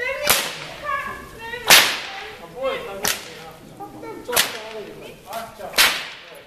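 Long-lashed Hungarian herdsman's whip cracked again and again as it is swung overhead: five sharp, loud cracks, about one every one and a half seconds, with a lighter crack between the last two.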